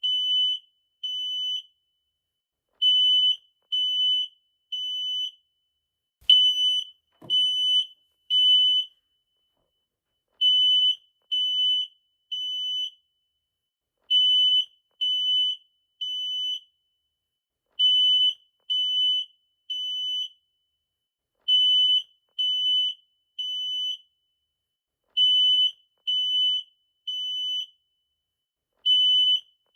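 Smoke detector alarm sounding the temporal-three evacuation pattern. Three high-pitched beeps of about half a second each are followed by a pause of about a second and a half, and the cycle repeats roughly every four seconds.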